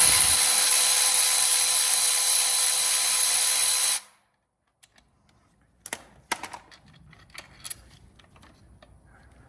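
A power tool's motor runs at one steady speed for about four seconds, then stops abruptly. A few light clicks follow.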